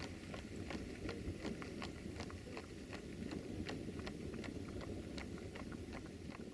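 Horses' hooves clopping on an asphalt road at a walk, a quick uneven run of sharp clicks about four a second, over a steady low rumble.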